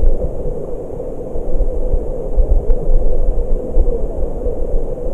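Muffled rush and rumble of a stream's current heard through an underwater camera: a steady, low, dull noise with no distinct events.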